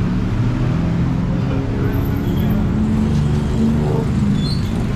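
Road traffic: a motor vehicle's engine running close by, a steady low rumble with a shifting engine note, and faint voices underneath.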